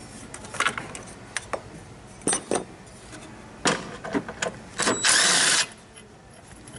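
Hand tools and car parts being handled: scattered clicks and knocks of metal and plastic, with a brief rasping noise about five seconds in, the loudest sound.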